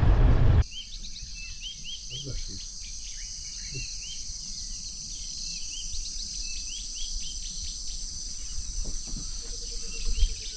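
Car road noise cuts off less than a second in. It gives way to a steady high-pitched insect chorus around a waterhole, with many short rising chirps from calling birds scattered over it.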